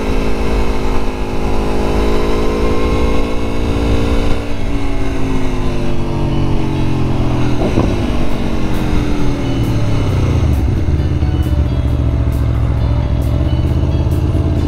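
Aprilia Tuono V4 Factory motorcycle's V4 engine running on the road. Its note falls slowly as the bike rolls off, rises a little and falls again, then holds low and steady for the last few seconds.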